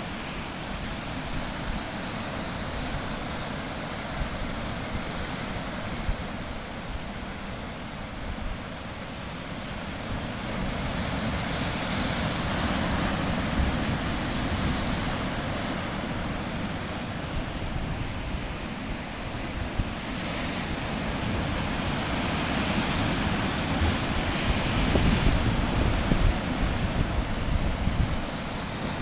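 Rough Atlantic surf breaking and washing over rocks below a low cliff: a continuous roar of water that swells louder about midway and again near the end. Wind gusts over the microphone, adding a low buffeting rumble.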